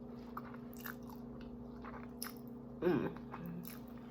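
Close-miked mouth sounds of someone chewing a mouthful of creamy pasta: soft wet clicks and smacks. A short voiced sound comes about three seconds in, over a faint steady hum.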